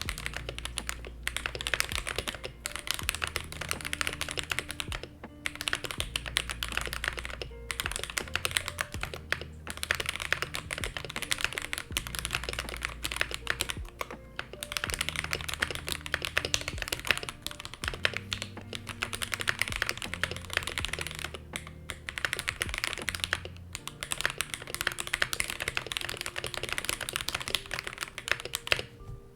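Fast typing on a mechanical keyboard fitted with Akko CS Sakura light linear switches (unlubed, POM stems and bottom housings, polycarbonate tops), a dense run of key clacks broken by short pauses every few seconds. Soft background music with a low bass line plays underneath.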